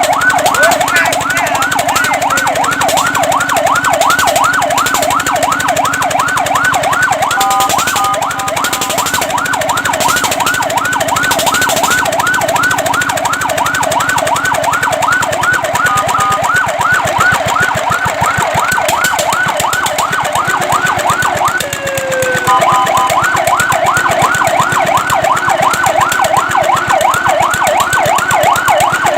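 Fire truck siren on its fast yelp, sweeping up and down in pitch about three to four times a second. About 8 seconds in it briefly holds steadier notes. About 22 seconds in it drops away in one falling sweep, then picks the yelp back up.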